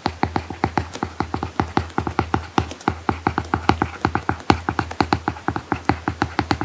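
Apple Pencil tip tapping and scratching on an iPad Pro's paper-like matte screen protector during handwriting: a quick, uneven run of sharp ticks, several a second, over a steady low hum.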